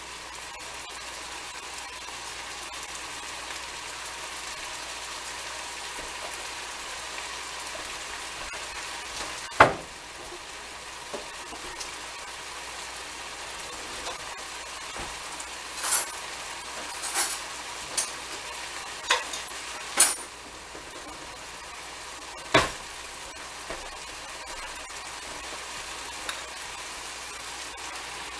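Ground beef and onions sizzling steadily in a frying pan, with several sharp clicks and knocks: one about ten seconds in, a cluster a few seconds later, and another a little after that.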